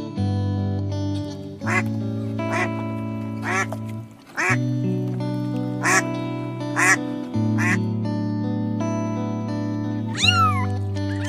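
A duck quacking, single quacks about once a second, over background music with held notes. Near the end a cat meows once, a call that arches up and falls.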